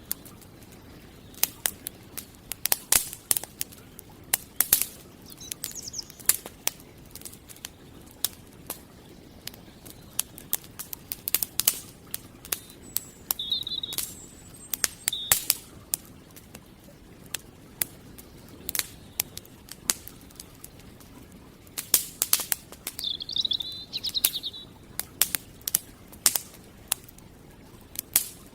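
Campfire crackling with irregular sharp pops and snaps. Small birds chirp in short high phrases a few times, with the longest twittering phrase near the end.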